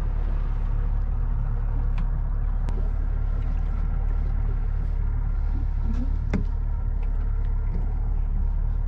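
Outboard motor of a small open boat running steadily, a continuous low hum, with a few faint clicks.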